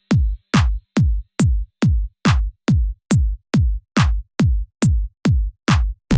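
Electronic dance music: a drum-machine kick drum playing alone in a steady beat, a little over two hits a second, each hit dropping quickly in pitch.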